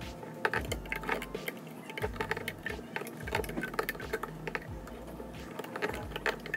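Irregular light clicks and taps of a loom hook and rubber bands against the plastic pegs of a Rainbow Loom as bands are looped forward, with occasional low thuds of hands on the loom.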